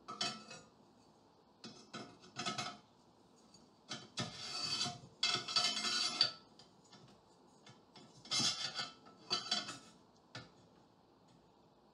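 Aluminium extrusion bars scraping and clinking against the metal frame as they are handled and fitted, in short bursts with two longer scrapes about four to six seconds in and a sharp click near the end.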